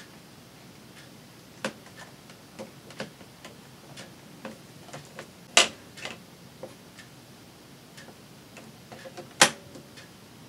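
Irregular light clicks and taps of craft tools and materials being handled on a work table, with two sharper clacks, one about midway and one near the end.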